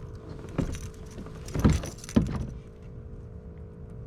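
Three sharp knocks with a rattle, one about half a second in and two close together near the middle, from fishing gear being handled against a kayak's hull, over a faint steady hum.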